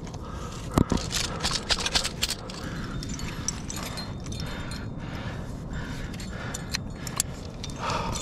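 Climbing hardware clinking and scraping as the leader pulls up rope and clips it into a carabiner on a sling. There are several sharp clicks about a second in and a few more near the end, over a steady low rush.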